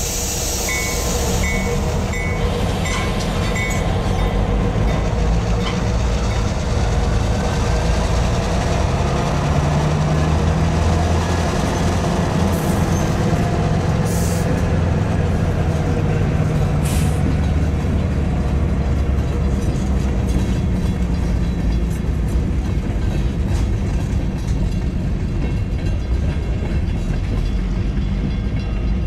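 Freight train cars rolling past at a grade crossing: a steady rumble and rattle of wheels on the rails, with a few short sharp noises partway through.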